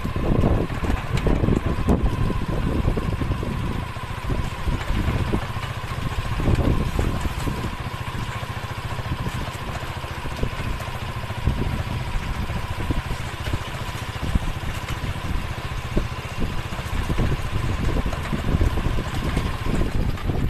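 Motorcycle engine of a sidecar tricycle running as it rides along, with a low rumble, uneven buffeting and a faint steady whine that stops near the end.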